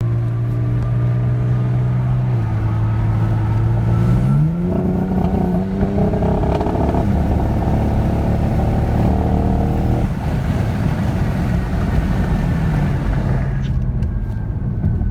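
Kia Stinger engine and exhaust running: the revs dip slightly about two seconds in, climb about four seconds in, hang at a raised speed, then fall back to a steady lower speed about ten seconds in. Revs that hang like this are the stuck-rpm problem the owner is trying to diagnose. A few sharp ticks come near the end.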